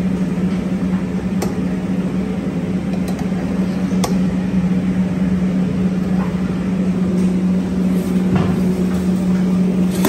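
Steady low mechanical hum of commercial kitchen equipment over a rushing noise, with a few faint clicks.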